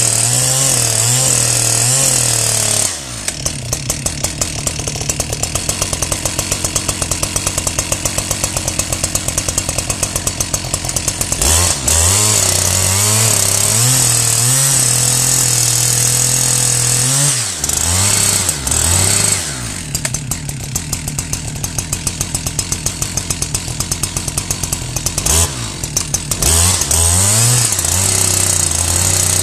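Husqvarna 372XP two-stroke chainsaw running hard while cutting down through a conifer stump close to the ground. The engine note changes every few seconds as the chain bites into the wood and is eased back out.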